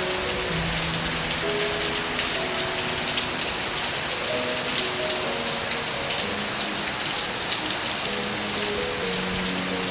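Heavy rain pouring down steadily, with the dense patter of drops on surfaces. A slow melody of held notes plays softly underneath.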